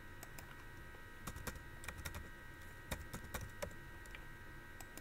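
Faint computer-keyboard typing: a scattered run of light key clicks as a word is typed, over a faint steady electrical whine.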